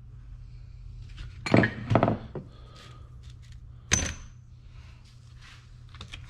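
Metal parts and tools knocking and clinking on a hard surface. There are two heavy knocks about a second and a half in, then a sharp metallic clink with a brief ring around four seconds, over a steady low hum.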